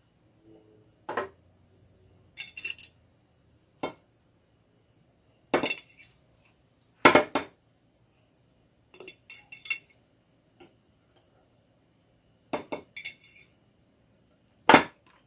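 Metal tongs clinking against a glass bowl and glass jar while shredded vegetables are scooped into the jar. The clinks are irregular, about one every second or so, and some carry a short glassy ring. The loudest come about seven seconds in and near the end.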